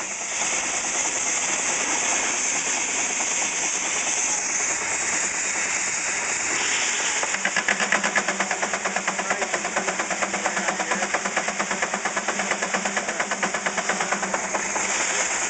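8 hp Russell portable steam engine running with a steady steam hiss and an even, quick chuff of about five beats a second, which grows more distinct from about halfway through.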